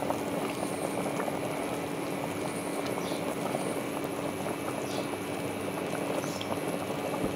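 Thickened chana dal kheer simmering in a pan: a steady bubbling crackle, with a steady low hum underneath.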